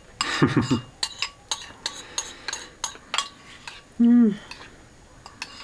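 Cutlery clinking against dishes while eating: a run of light, irregular taps and clinks, with a short voiced sound about four seconds in.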